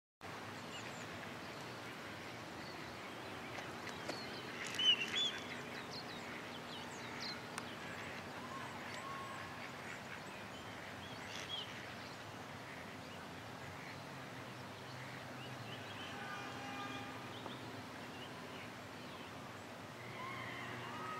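Mallard calling now and then over a steady background hiss, the loudest calls about five seconds in.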